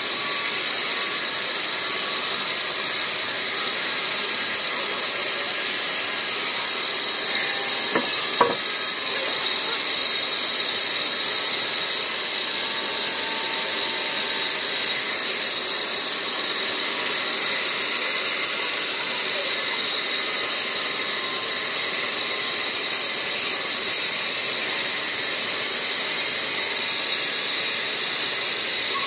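Large vertical band saw ripping a log lengthwise, a steady high hiss of the blade running through the wood. Two short sharp knocks come about eight seconds in.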